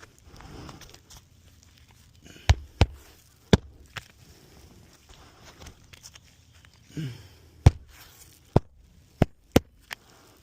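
Sharp single hammer blows on an asphalt shingle roof, about eight in all, coming singly and in quick pairs with pauses between, with some rustling of handling in between.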